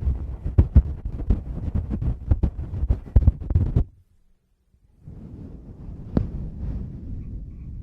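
Fingers tapping and rubbing directly on a Tascam microphone, giving dense, muffled low thumps. About four seconds in the sound drops out for a second, then comes back as softer continuous rubbing with one sharper tap.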